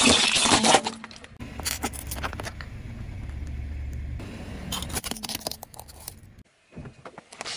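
Car tyre rolling over and crushing small plastic objects on pavement. It opens with a loud crunch and crackle of breaking plastic, then a few sharp snaps over a low rumble of the rolling car, and another burst of cracking about five seconds in.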